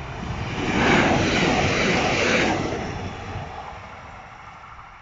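Bombardier Talent 2 electric multiple unit passing at speed: a rush of air and wheel noise that swells over about a second, holds, then fades away over the next two seconds.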